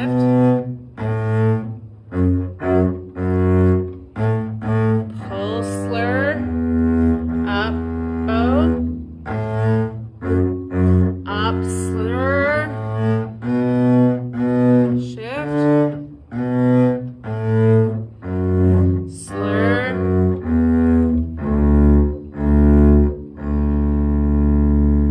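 Double bass played with the bow: a line of short, separate notes, some slurred, changing about every half second, ending on longer held low notes.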